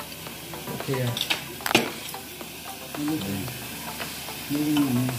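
Thin beef slices sizzling steadily in a hot tabletop grill pan while being turned with chopsticks, with one sharp tap about two seconds in.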